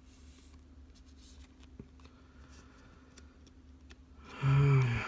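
Trading cards and plastic card sleeves handled quietly, with faint rustles and light taps. About four seconds in comes a louder rustle together with a brief murmur from the person.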